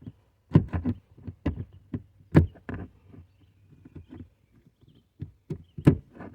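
Irregular plastic clicks and knocks as a trunk-trim push grommet is worked loose and pulled out of the panel, with three louder knocks among the lighter taps.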